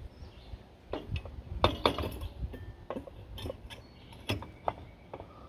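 A string of light clinks and clicks from small metal and glass lamp parts being handled in a traffic signal housing during a lamp change, the loudest about two seconds in.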